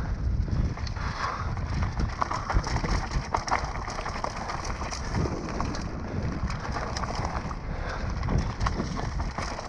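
Mountain bike riding fast down a rocky dirt singletrack, heard from a camera on the rider: tyres rolling and crunching over dirt and stones, with frequent clattering knocks from the bike over bumps under a constant low rumble.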